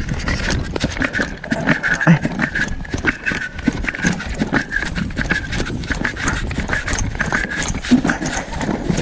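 Hurried footsteps thudding and splashing through shallow water and wet weed on a tidal sand flat, a quick, uneven run of footfalls.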